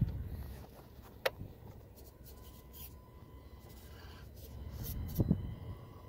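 Scratchy scraping and crunching of an Axial SCX24 Deadbolt crawler's RC4WD Scrambler rubber tires clawing up sandy sandstone, with a sharp click about a second in and two quick knocks near the end.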